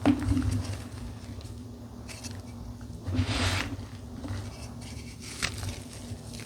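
Dyed gym chalk being crushed, crumbling in a handful of separate crunches a second or so apart, the longest about three seconds in, over a steady low hum.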